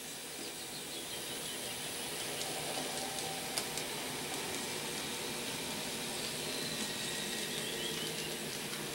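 N scale model freight train running around a layout loop: a steady, fairly quiet running noise of the locomotive motors and wheels on the track, with a faint high whine at times. One sharp click comes about three and a half seconds in, which may be the automatic turnout at the far end of the loop flipping over.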